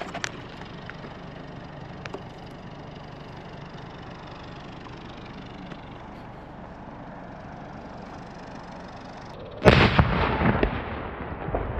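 A firework going off about nine and a half seconds in, after a long quiet stretch: a sudden loud blast, then a couple of seconds of sharp popping as it throws out a shower of sparks.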